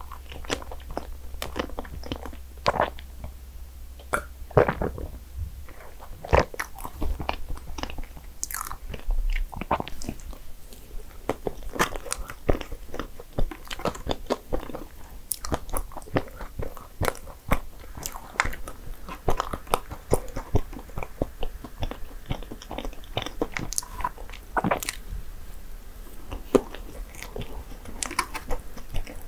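Close-miked eating: a person biting and chewing dessert, with many irregular sharp clicks and mouth noises throughout.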